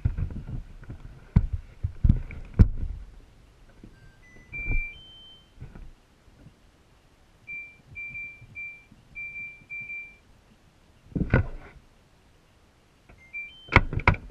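Top-loading washing machine's control panel beeping as it is set: short electronic beeps, a few stepping up in pitch, then a run of seven same-pitched beeps, and rising beeps again near the end. Loud knocks and thumps of the machine's lid and handling come near the start, about 11 seconds in and near the end.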